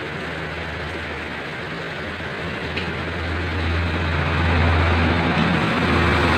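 Steady rain hiss with a low engine hum underneath that grows louder about three seconds in.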